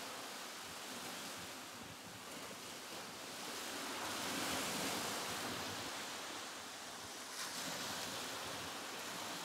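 Sea waves washing in, a steady rushing surge that swells to a peak about halfway through and ebbs away again.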